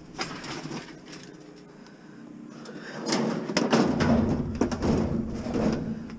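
A discarded appliance being shoved and wrestled into a van: scattered knocks at first, then from about halfway a louder run of scraping and clunking.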